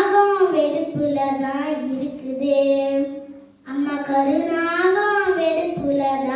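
A young girl singing a Tamil folk song solo and unaccompanied, holding long notes that glide between pitches, with a short break for breath about three and a half seconds in.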